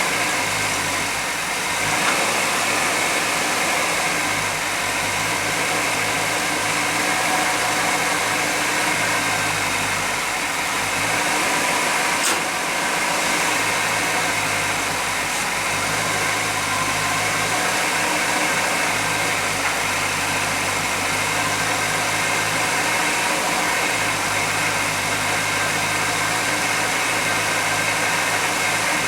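1991 GMC Jimmy's engine idling steadily with a constant hiss over it, while it is being checked for a suspected vacuum leak. A couple of brief clicks cut through, about two and twelve seconds in.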